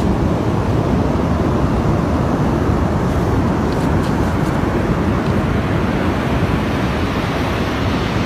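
Steady, loud rushing noise of wind and surf on a beach, picked up by a phone microphone.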